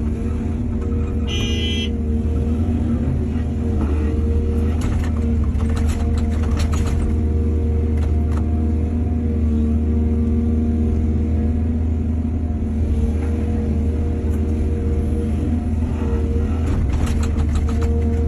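Excavator's diesel engine running steadily under load, its pitch shifting slightly as the hydraulics work. A brief high squeal comes about one and a half seconds in, and bursts of clattering come around five to seven seconds in and again near the end.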